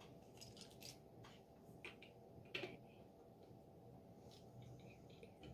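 Faint clicks of plastic LEGO bricks being handled and pressed together, a handful of light, scattered ticks with the clearest about two and a half seconds in.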